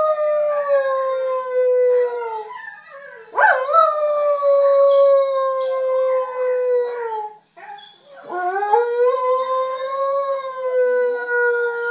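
Dog howling: a long howl already under way ends about two and a half seconds in, then two more long howls follow. Each rises sharply at the start and then slides slowly down in pitch.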